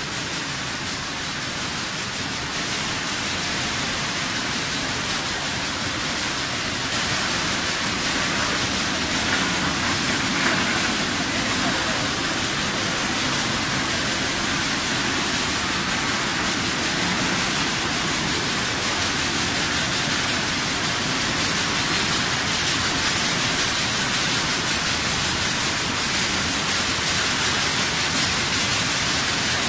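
Vegetable processing line running: conveyor drive motors and water in the washing equipment make a steady rushing hiss.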